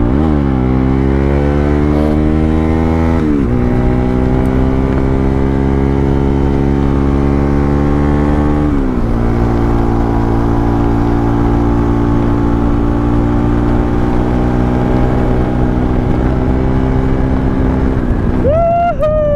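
Motorcycle engine heard from the rider's own bike while under way. It pulls up through the revs, its pitch drops sharply at upshifts about three and a half and nine seconds in, then it holds a steady cruise. A short high sliding tone sounds near the end.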